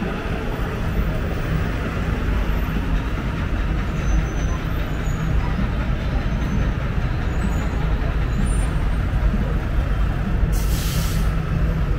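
Busy city street traffic: a steady low rumble of vehicle engines, with a brief hiss near the end.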